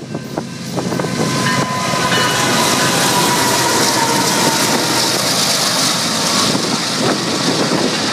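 Two BNSF diesel locomotives passing close at speed, their engines loud with a thin whine that falls slightly as they go by, then double-stack container cars rolling past with the hiss and clickety-clack of steel wheels on the rails.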